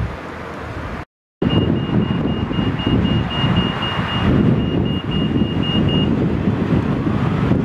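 Heavy wind buffeting and rumble on the microphone as a South Western Railway Desiro electric train approaches, with a faint rising motor whine near the end. A rapid high-pitched electronic beeping, about three beeps a second, sounds for about four and a half seconds.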